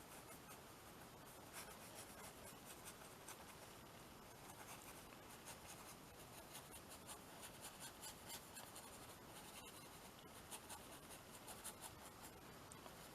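Faint scratching of a colouring tool worked over paper on a canvas: many small, quick scratchy strokes, busier in the second half.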